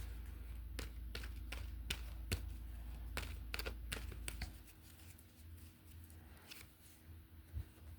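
Tarot cards being handled and shuffled by hand: a run of light clicks and taps, thinning out after about half the time. Under them a low steady hum from a room heater cuts out about halfway through.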